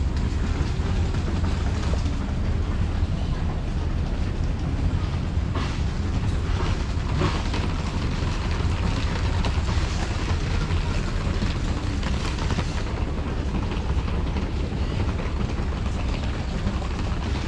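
Steady low rumble of wind buffeting a handheld camera's microphone while walking, with faint voices of other passengers.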